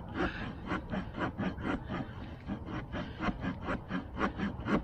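Victorinox Ranger Swiss Army knife's saw blade cutting through a stick in quick, even back-and-forth strokes, about four rasps a second.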